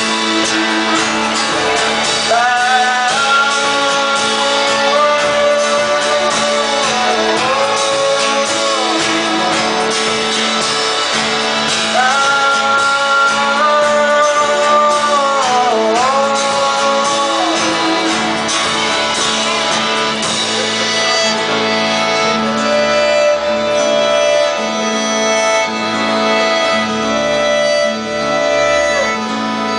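Live band playing an instrumental passage of an indie-folk song: strummed guitar under a sustained, sliding melody line, with the accompaniment filling out about twenty seconds in.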